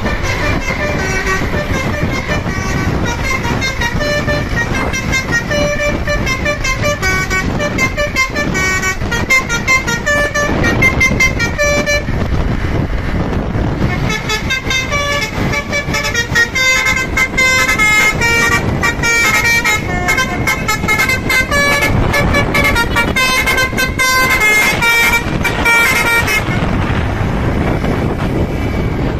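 Basuri telolet horn on a bus, a multi-trumpet musical air horn, playing a fast melody of short stepped notes over vehicle noise. It plays in two long runs with a break of about two seconds in the middle, then stops a few seconds before the end.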